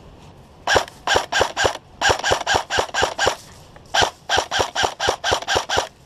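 Airsoft electric rifle firing a quick string of single shots, about four or five a second, each a sharp mechanical crack with a brief whine. There are three runs with short pauses between them.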